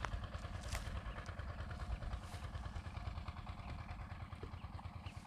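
Wind buffeting the microphone: a low, fluttering rumble, with a couple of faint clicks.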